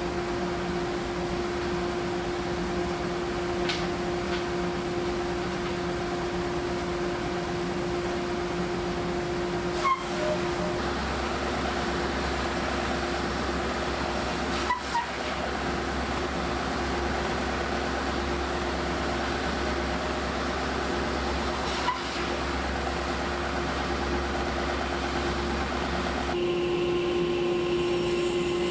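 Wide belt sander running with a steady hum as door frames feed through on its conveyor. A few seconds before the end the hum changes to a different steady machine drone, the table saw running.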